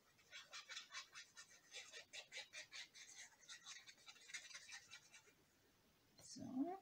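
White card stock being handled and rubbed: a run of quick, soft scratchy strokes, about five a second, lasting some five seconds. Near the end comes a brief rising hum, the loudest moment.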